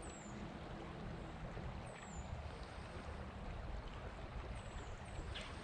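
Steady rush of flowing creek water, with a few short, high, falling chirps around two and five seconds in.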